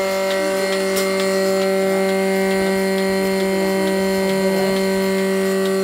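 Single-bucket milking machine's electric motor and vacuum pump running, a steady hum with faint regular ticks above it.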